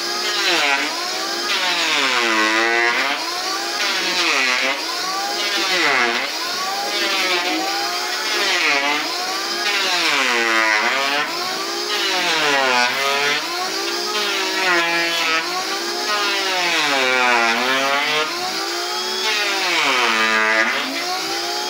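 Handheld electric planer shaving a wooden door. Its motor whine drops in pitch as it bites into the wood on each stroke and rises again between strokes, about every two seconds.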